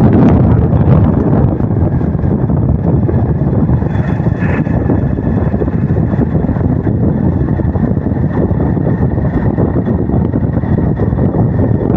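Steady wind buffeting the microphone with the rumble of a moving vehicle, filmed from the vehicle as it drives along a dirt road.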